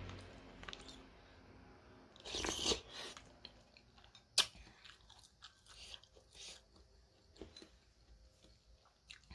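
A person eating noodles close to the microphone: a loud slurp about two and a half seconds in, a single sharp click near the middle, then soft chewing and wet mouth smacks.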